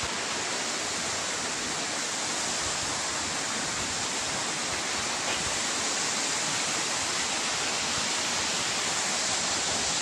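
Waterfall plunging down a cliff into a pool: a steady, unbroken rush of falling water.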